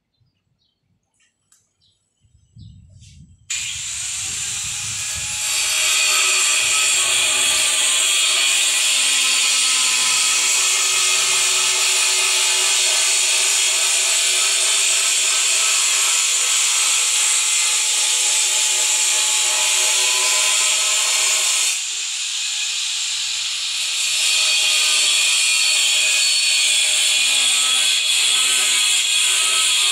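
A power tool starts abruptly a few seconds in and runs with a loud, steady high-pitched whine. It eases off briefly about two-thirds of the way through, then picks up again.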